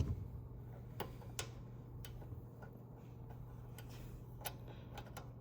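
A few scattered light clicks and taps, as of small parts being handled, over a steady low hum.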